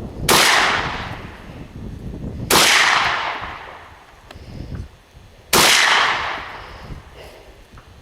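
Three rifle shots fired slowly, a couple of seconds apart, each a sharp crack followed by a long echoing tail.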